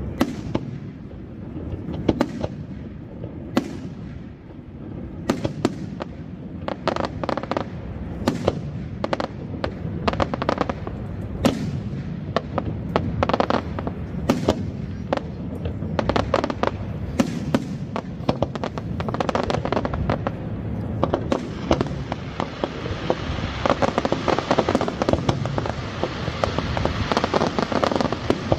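Aerial firework shells bursting one after another, the sharp bangs coming faster as it goes on. From about twenty seconds in, a dense crackling fills the gaps between the bangs.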